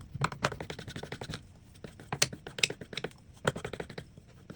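Knife blade worked in quick strokes against a knife sharpener coated with sharpening cream, giving a rapid run of scraping clicks in three bursts.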